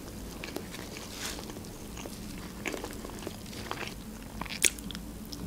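Close-miked eating of soft cake: chewing and wet mouth sounds with small scattered clicks, and one sharper click about four and a half seconds in.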